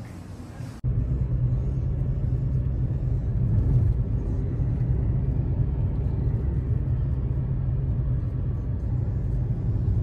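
A steady low rumble that starts abruptly about a second in and holds at an even level.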